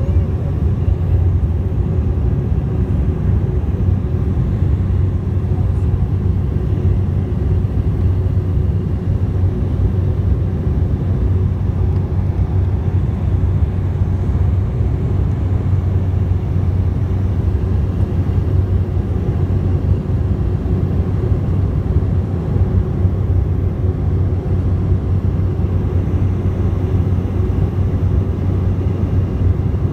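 Jet airliner's engines and airflow heard inside the passenger cabin during the climb after take-off: a steady low drone with a constant hum and a fainter steady tone above it.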